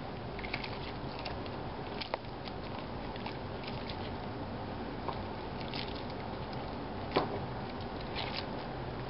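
A spoon stirring a thick pot of red beans and chopped vegetables: wet squishing with scattered light clicks of the spoon against the pot, and a sharper knock about two seconds in and again about seven seconds in, over a steady background hiss.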